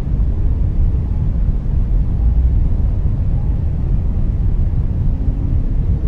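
Steady low rumbling noise, the background bed of a whale-sound white-noise track, with faint drawn-out whale calls in it; a low whale call begins near the end.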